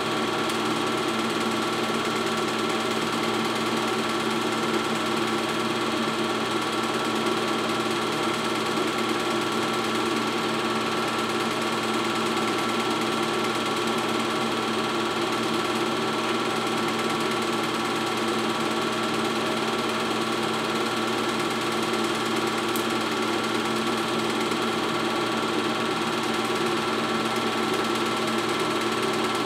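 Super 8 film projector running, a steady mechanical whir of its motor and film transport with several constant tones, unchanging throughout.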